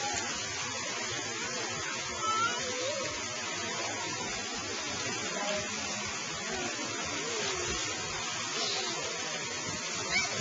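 Steady hiss of water spraying and falling from a pool fountain, with faint children's calls over it.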